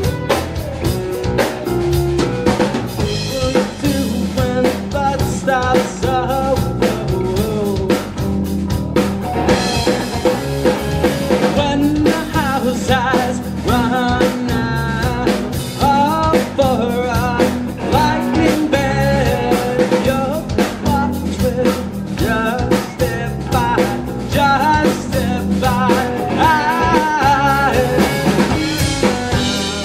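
Live rock band playing a song: a man sings lead over electric guitar and a drum kit keeping a steady beat, with keyboards in the band.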